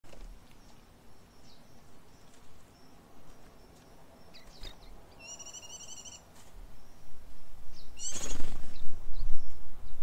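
Small birds chirping with thin high calls, and a short trilled call about five seconds in. A low rumbling noise grows louder in the last few seconds, with a loud rush about eight seconds in.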